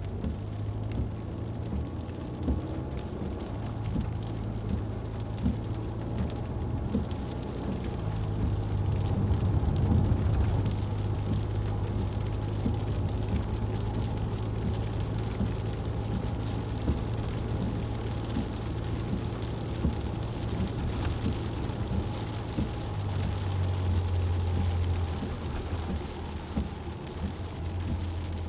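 Rain on a moving car: many small drop ticks over a rushing wash of water and road noise, with a steady low engine hum that shifts in pitch a few times.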